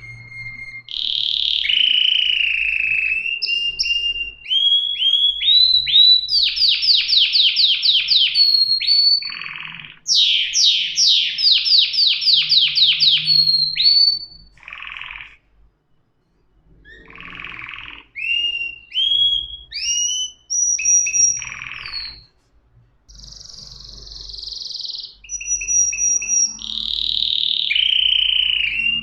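Domestic canary singing a long, varied song of whistled notes and fast rattling trills, broken by two short pauses.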